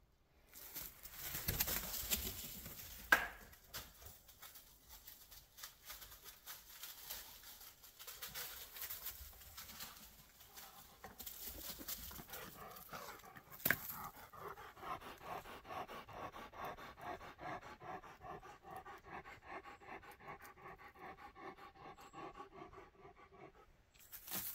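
A dog panting in quick, steady breaths, with rustling in the first few seconds and two sharp clicks.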